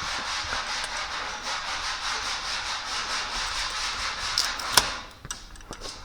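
Sandpaper rasping steadily over body filler on a car panel, a sanding stroke carried on without pause, with a sharp click near the end before the sanding stops.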